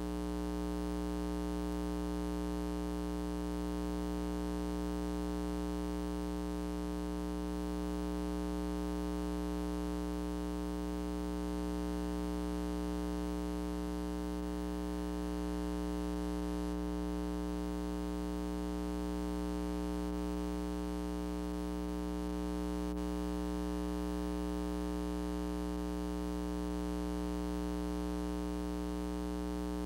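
Steady electrical mains hum with a buzzy edge, unchanging in pitch and level, with no other sound heard over it.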